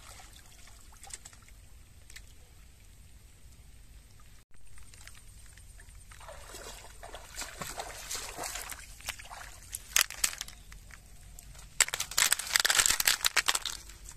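Water splashing and sloshing as someone searches by hand in shallow water for setua. It is faint at first, busier from about six seconds in, and loudest in a run of splashes near the end.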